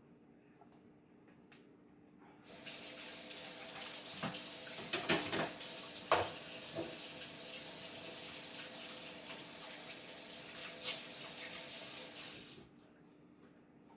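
Kitchen tap turned on and running for about ten seconds while hands are washed under it, then shut off abruptly; a few knocks and clatters at the sink about two to four seconds after it starts.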